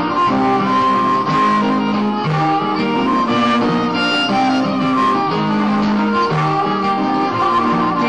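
Live band music: guitars playing chords under a held, sustained melody line.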